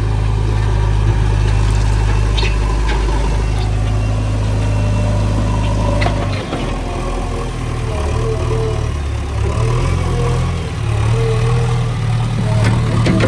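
Diesel engine of heavy machinery running at a steady low note, which becomes uneven and shifts in pitch about six seconds in as the load or throttle changes.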